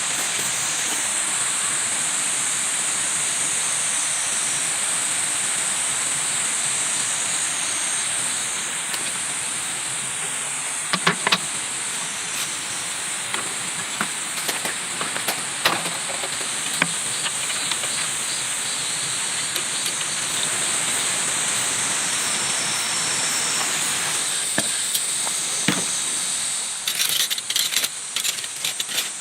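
Campfire crackling: a steady hiss with a constant high-pitched band over it, broken by scattered sharp pops and crackles that come thicker near the end.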